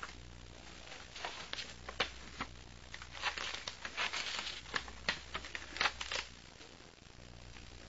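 Faint, irregular crackles and clicks for about five seconds over a steady low hum and hiss, the background noise of an old tape recording between spoken sections.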